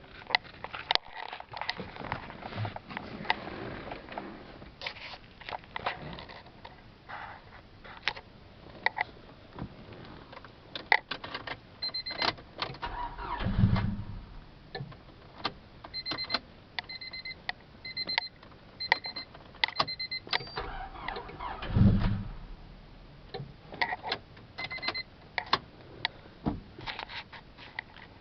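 1999 Honda Civic coupe being tried twice: two short low bursts of about a second each, the engine cranking or catching and dying at once, in a car that won't start or keeps cutting out. Clicks and key jangling run throughout, with runs of a repeating electronic beep between them.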